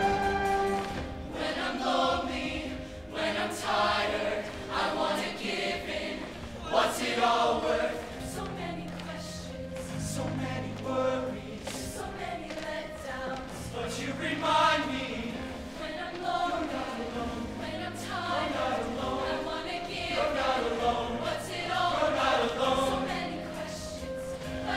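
Mixed-voice show choir singing in harmony over instrumental accompaniment with a held bass line.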